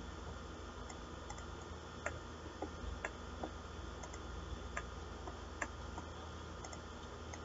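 Computer mouse clicking: several sharp clicks at irregular intervals, over a steady low hum.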